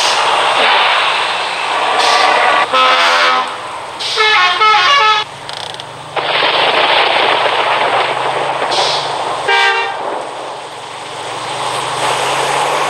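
A vehicle running on an aftermarket exhaust: a low steady engine note under loud wind and road noise, broken three times by short horn honks, the middle one a quick series of toots.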